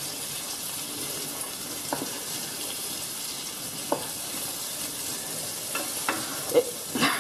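Pancetta and pork jowl (barbozzo) sizzling in oil in a frying pan, a steady hiss, with a few light knocks of a knife slicing beef fillet on a cutting board, more of them near the end.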